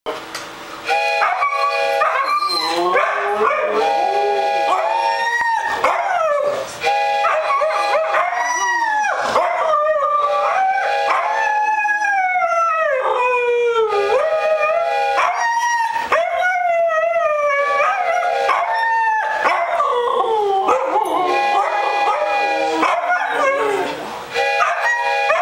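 Two Siberian huskies howling together, long wavering howls that slide up and down in pitch and overlap. A wooden whistle sounds three times in the first eight seconds, several steady tones at once, and the dogs howl along with it.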